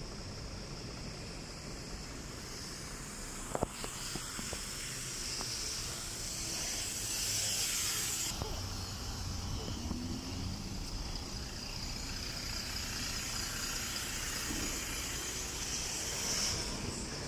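Traffic running on a wet road as a LiAZ 5292 city bus pulls up at the stop. A loud hiss of compressed air from the bus builds and cuts off sharply about eight seconds in, and a shorter hiss comes near the end.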